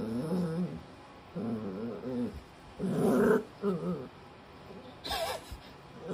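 Shiba Inu puppy growling in about five short, wavering bouts while being rubbed with a towel. It is an angry protest at being towel-dried after a bath. The last bout is brief and higher-pitched.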